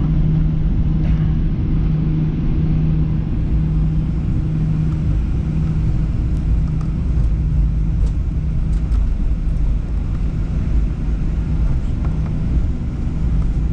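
Boeing 737-800 cabin noise on the ground before takeoff: a steady low drone from the CFM56 jet engines and cabin air, with a constant low hum under it.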